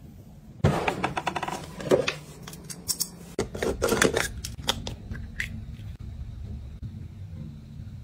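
A plastic face-mask tube being handled and opened: a dense run of sharp plastic clicks and crackles starting suddenly under a second in and lasting about four seconds, then a few lighter single clicks, over a low steady hum.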